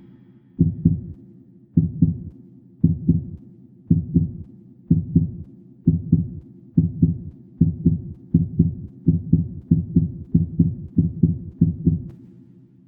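A heartbeat: low double thumps, lub-dub, speeding up from about one beat a second to about two a second, then stopping shortly before the end.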